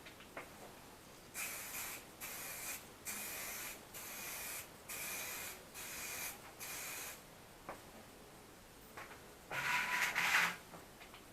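Aerosol rattle can of 2K clear coat spraying in a run of short hissing passes with brief gaps, then one louder, closer spray burst near the end.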